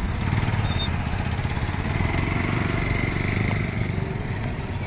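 Motorcycle engine idling close by: a steady low rumble.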